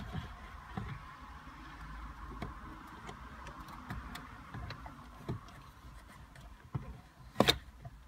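Handling noise from a car radio unit being pulled out of its dashboard slot: scattered light clicks and scrapes of its metal case and plastic, with a louder knock near the end.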